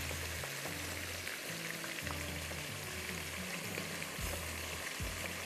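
Schezwan sauce of oil, chili oil, ketchup and chili sauces sizzling steadily in a hot nonstick wok while a spatula stirs it, with faint music underneath.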